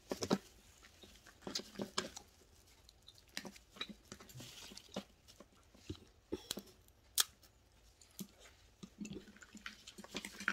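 Red snow crab being eaten by hand: irregular sharp cracks and clicks of shell being broken, with chewing.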